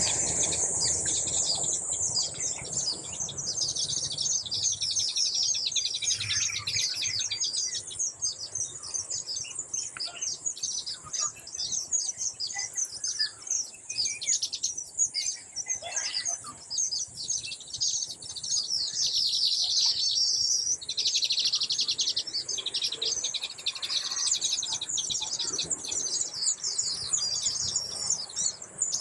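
Baya weavers at a nest colony chattering: a dense, unbroken chorus of rapid high chirps.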